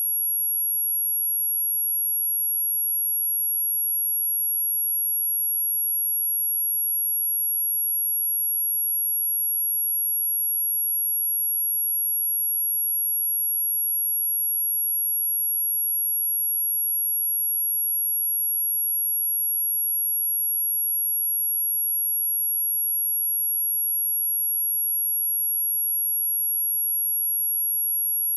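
A steady, high-pitched 11303 Hz sine-wave test tone, one pure unchanging pitch, as played to test speakers or shake dust and water out of them.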